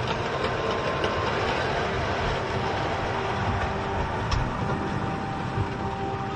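OO-gauge model trains running on a layout: a steady whirring hum from the locomotives' small electric motors, with the wheels clicking over the rail joints.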